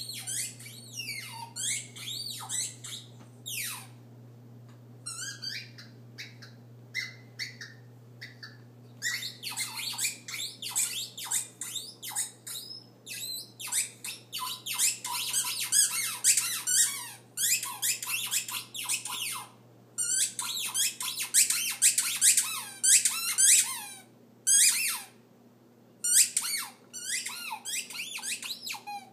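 Squeaky dog toy squeaked over and over by a puppy: dozens of short high squeaks, some single and some in fast runs, with brief pauses between them.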